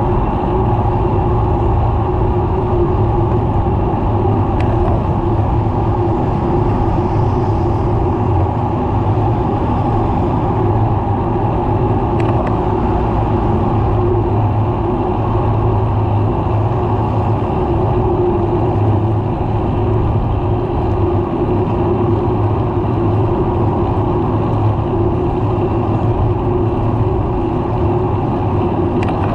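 Steady road noise of car traffic passing close by on a multi-lane highway, heard from a moving bicycle on the shoulder.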